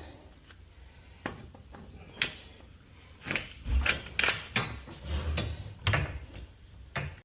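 Sharp metallic clinks and knocks of tools and hardware during garage door torsion spring work: two single clicks early, then a quicker run of knocks and clinks in the second half.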